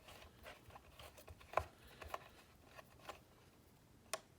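Faint, scattered small clicks and ticks of an Allen key working the screws out of a plastic holster, with one sharper click about one and a half seconds in.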